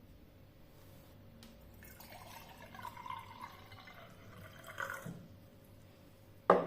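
Liquid being poured into a cup or glass for about three seconds. A single sharp knock near the end.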